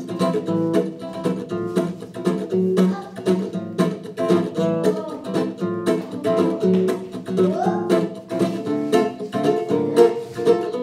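Guitar music with quick plucked notes in a steady, running rhythm.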